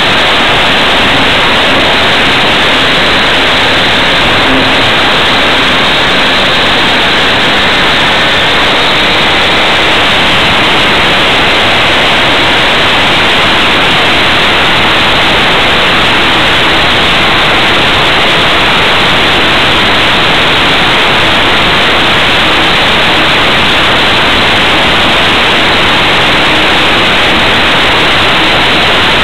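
Loud, steady rush of airflow noise on a camera mounted under the wing of a small propeller aircraft in flight, with a faint steady hum underneath.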